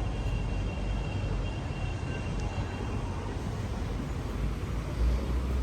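City street traffic noise: a steady low rumble of passing vehicles, with a faint high whine for the first few seconds and a louder low rumble near the end.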